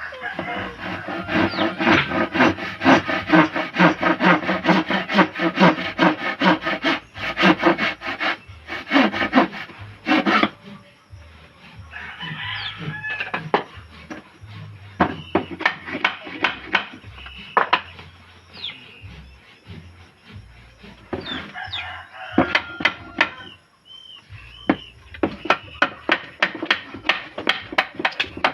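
Hand woodworking: about ten seconds of a rapid, loud rasping scrape on wood, then scattered sharp knocks and taps.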